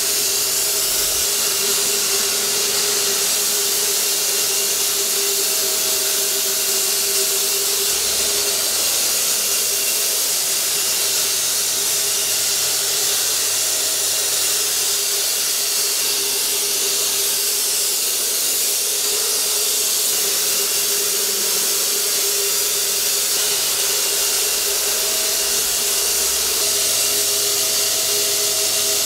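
Corded handheld electric cold fogger spraying disinfectant mist: a steady motor whine under an even, continuous hiss.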